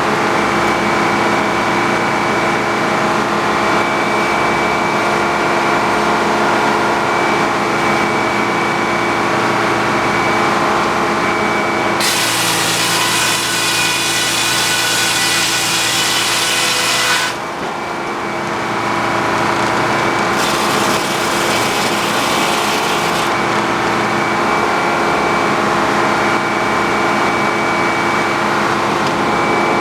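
Sawmill running steadily under power, with the blade cutting through a log. The cut adds a loud hiss for about five seconds near the middle, which ends abruptly, and again for about three seconds shortly after.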